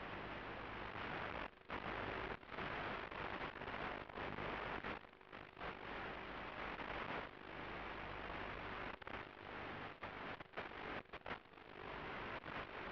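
Steady hiss of static on the audio channel of an analog FPV video receiver's recording, cutting out abruptly for moments several times.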